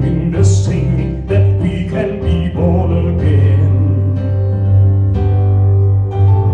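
Music from an Easter gospel song: held chords over a steady bass line.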